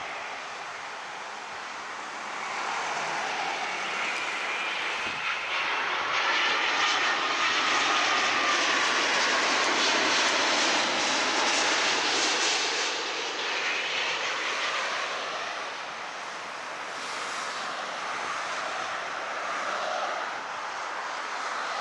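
Boeing 787-9 airliner's Rolls-Royce Trent 1000 jet engines on low final approach, passing close by with a whine that shifts in pitch as it goes over. The sound swells to its loudest about ten seconds in, then fades.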